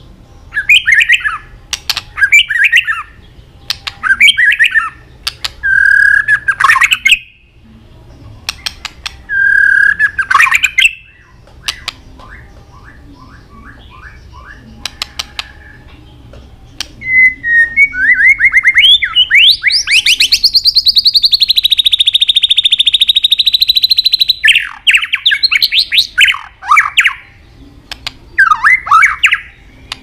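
White-rumped shama calling: short harsh chattering notes and series of sharp 'tạch' clicks, then a long rapid rattling trill of about seven seconds past the middle, followed by more short harsh notes.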